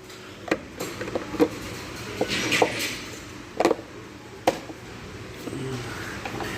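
About seven sharp clicks and knocks, spread irregularly over several seconds, from hands and tools working on a pressure washer's engine, with a brief hiss a little past two seconds in.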